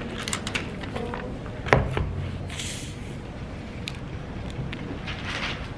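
Handling noises: scattered clicks and rustles over a low rumble, with one sharp knock a little under two seconds in and a couple of short hisses.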